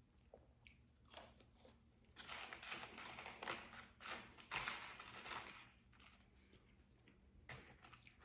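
Person eating fast food close to the microphone: a few faint clicks, then a few seconds of crunching and rustling noises from about two seconds in, then quiet again.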